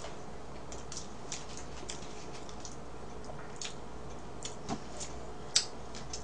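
Scattered light clicks and ticks of people eating cake with plastic forks and chewing, irregular, with one sharper click near the end, over a steady low room hum.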